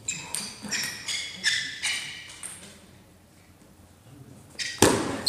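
Plastic table tennis ball clicking off the table and bats in a string of sharp, ringing pings, about three a second. After a short lull comes a loud, hard hit near the end, then another ping.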